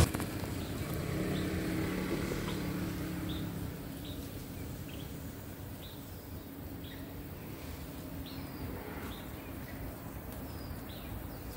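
A bird repeating a short, high, slightly falling chirp about once a second, over a low steady rumble that fades after the first few seconds.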